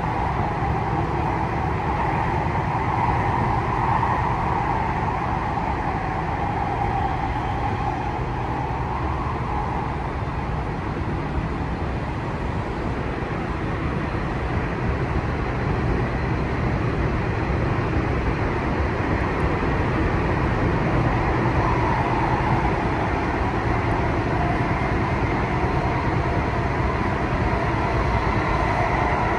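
Tokyu 3020-series electric train running at speed, heard from inside the passenger car: a steady rumble of wheels on rail with an even hiss over it, no clear motor whine rising or falling.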